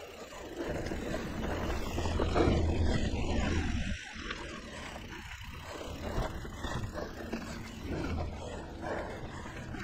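Riding a mountain bike on dirt singletrack: wind rushing over a chest-mounted action camera's microphone, with tyre rumble and the bike rattling over bumps. It is loudest about two to four seconds in.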